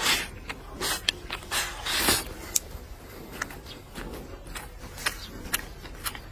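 Close-up eating sounds: a string of sharp clicks, with louder noisy bursts near the start and about two seconds in.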